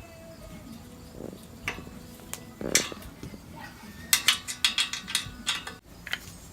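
Clinks and clatters of bird cage parts being handled and fitted together: a few single knocks, then a quick run of rattling clicks in the second half.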